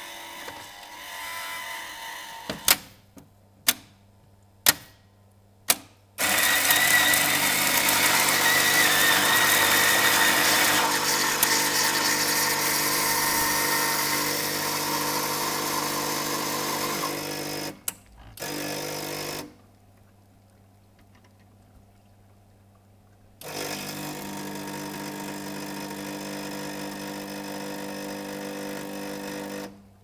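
Rheavendors Cino XS bean-to-cup coffee machine working through a drink cycle: four sharp clicks about a second apart, then the grinder runs loudly and steadily for about eleven seconds. After a brief whir and a pause of a few seconds, a quieter, steady hum runs for about six seconds, typical of the brewing stage.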